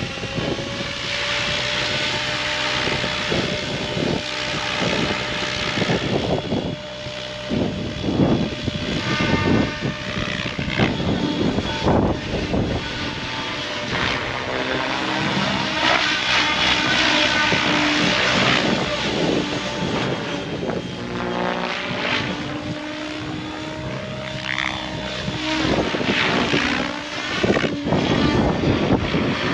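Electric RC helicopter in flight: its rotor blades and motor whine steadily, and the pitch shifts up and down as it is flown about.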